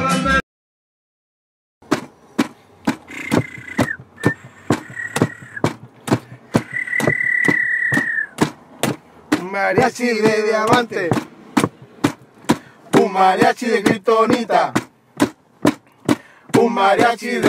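A steady drumbeat at about two strikes a second, with a held whistle-like tone early on, then a crowd of women chanting in unison over the beat in repeated phrases.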